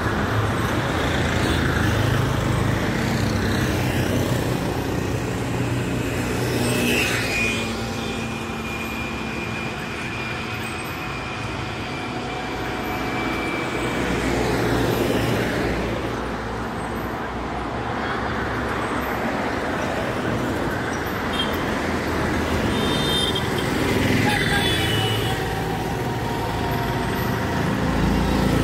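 Roadside traffic: motorcycles, cars and trucks driving past with a steady hum of engines and tyres, swelling three times as a vehicle goes by close.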